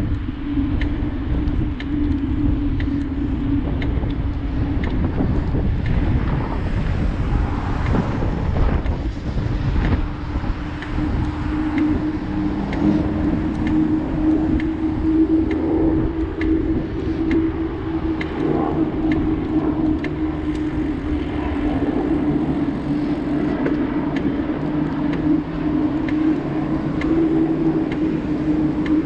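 Bicycle riding along a paved path: a steady hum and low rumble of tyres rolling on asphalt, with wind buffeting the action camera's microphone and car traffic passing on the road alongside.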